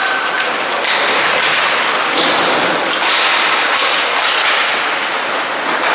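Ice hockey play in a rink: a steady scraping hiss of skates on the ice, broken by several sharp knocks of sticks and puck against the ice and boards.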